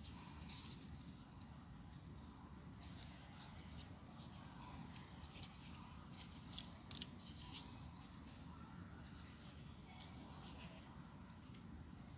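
Small folded paper units of a 3D origami model rustling and crackling faintly and irregularly as fingers press and slot them together.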